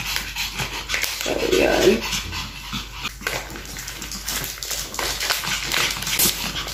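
Pomeranians panting and whining excitedly while begging for a dental chew held above them, with one short wavering whine about a second and a half in. Short crackles and clicks run through it.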